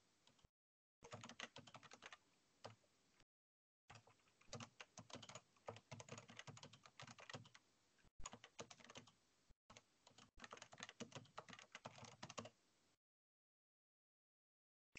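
Faint typing on a computer keyboard: runs of quick key clicks, which stop near the end.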